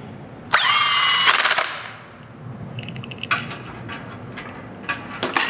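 Impact wrench running lug nuts onto a truck wheel: a short motor whine that drops in pitch as it starts, then a brief rapid rattle of hammering. Shorter rattling bursts follow a couple of seconds later and again near the end.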